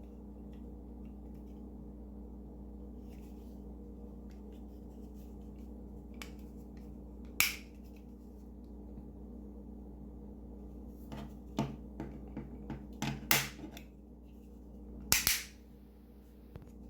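Sharp plastic clicks and snaps of a small Chamberlain garage door remote's case being fitted back together: a single loud click about seven seconds in, then a cluster of clicks near the end, over a steady low hum.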